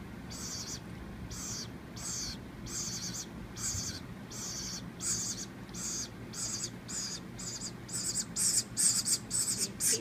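Nestling woodpecker giving high, hissing begging calls over and over, about two a second, as it is fed from a spoon; the calls get louder and quicker near the end as the food reaches it.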